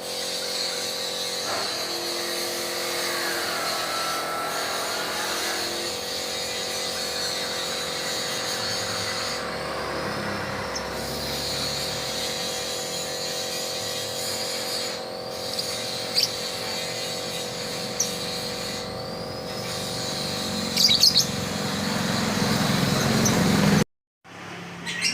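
Lovebirds chirping, with a few short sharp calls over a steady hum.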